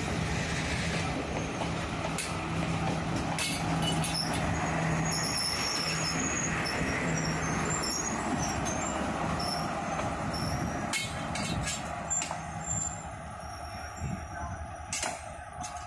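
Diesel multiple-unit train engine running with a steady low hum over rumble. It grows quieter after about ten seconds, leaving scattered clicks and short high chirps.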